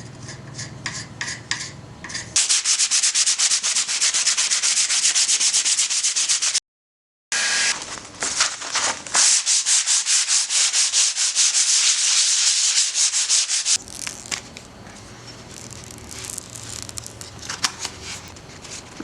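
Sanding the side of a pinball cabinet with rapid, scratchy strokes, preparing the surface for new side-art decals. The strokes are loud and dense for most of the stretch, break off for under a second, then fall to quieter rubbing and scraping near the end.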